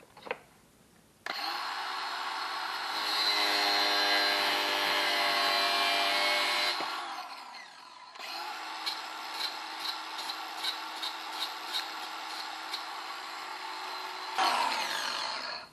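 Angle grinder cutting off a steel bolt. It runs for about five seconds and winds down, then starts again a second later with regular ticks about twice a second, and stops near the end.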